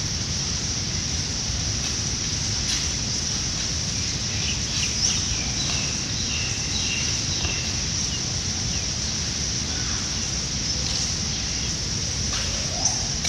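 Tropical outdoor ambience: a steady high-pitched insect drone with scattered bird chirps over a low wind rumble, and one sharp click near the end.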